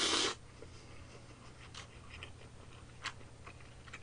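A person slurping buckwheat soba noodles and broth from a spoon; the slurp cuts off a moment in. Quiet chewing follows, with a few faint clicks.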